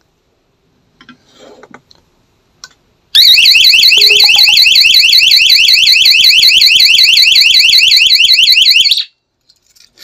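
Small electronic alarm siren sounding a loud, rapidly warbling high-pitched wail, set off when magnetic door contact 2 is opened. It starts about three seconds in and cuts off abruptly about six seconds later as the alarm is switched off from the remote. A few faint handling clicks come before it.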